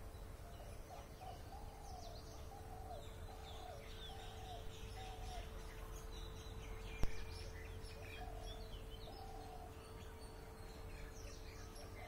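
Morning birdsong: scattered high chirps of small birds over a lower call repeated about twice a second, which pauses midway and returns near the end. A steady faint hum runs underneath, and a single sharp click comes about seven seconds in.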